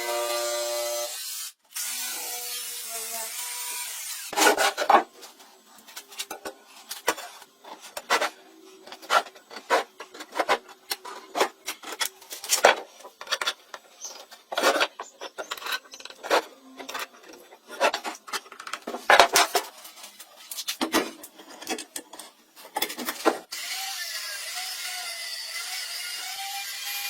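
Hand tools working wood: a long run of short, irregular scraping and knocking strokes, one or two a second, that stops suddenly near the end.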